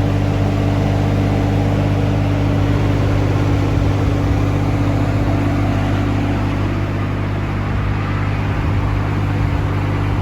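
Yanmar diesel engine of a Sunward SWE18UF mini excavator running at a steady speed, with an even, unchanging drone.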